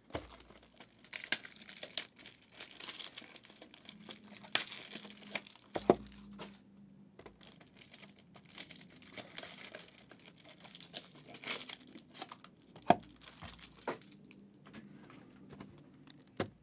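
Trading card pack wrappers being torn open and crinkled, with sharp snaps and rustling as the cards are handled.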